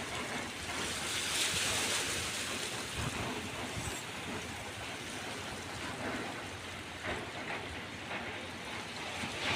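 Sea waves washing onto the shore, a steady rush of surf that swells a little about a second or two in.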